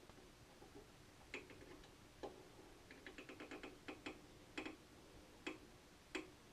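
Faint, irregular small clicks and taps from hands working on a Commodore PET, about a dozen in all, with a quick rattle of clicks about three seconds in.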